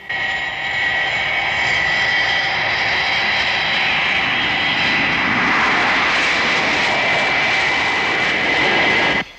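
Jet airliner engines at full takeoff power: a loud, steady roar with a high whine over it. It cuts off suddenly near the end.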